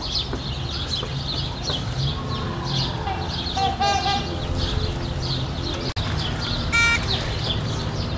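Small birds chirping in quick, repeated high peeps throughout, with a louder pitched call about four seconds in and another short, loud call about seven seconds in.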